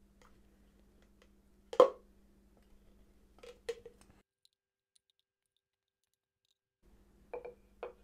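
A few clicks and knocks as a spatula scrapes and taps spinach purée out of a glass blender beaker into a stainless-steel bowl, with one sharp knock about two seconds in. The sound cuts out entirely for a couple of seconds midway.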